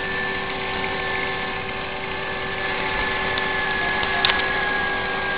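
Home-built FlowerPower rotor generator running: a steady whirring with several steady tones, one of them a high whine that sinks slightly in pitch. A small click sounds about four seconds in.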